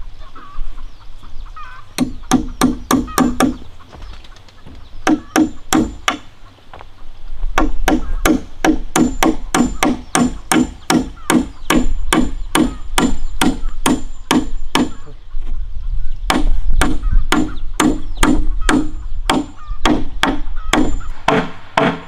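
Hammer blows on a wooden post, steady strikes about three a second in several runs with short pauses between.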